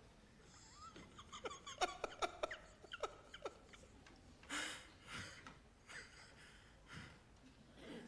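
A man's soft, breathy laughter: a quick run of short chuckles, followed by a few heavy breaths.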